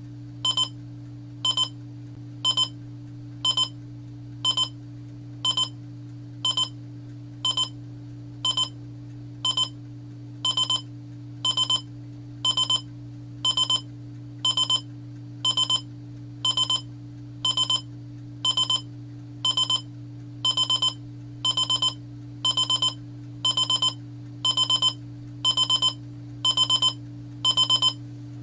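AZUTTA digital alarm clock radio's alarm beeping about once a second as the nap countdown timer runs out. The beeps are high-pitched, short at first, then longer and a little louder as the alarm goes on. A steady low hum runs underneath.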